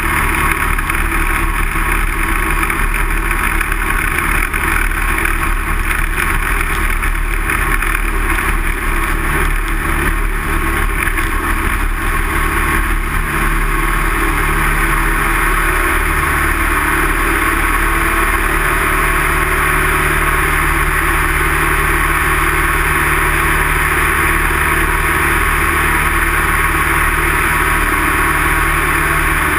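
Light single-engine aircraft's piston engine and propeller running steadily, heard from inside the cockpit.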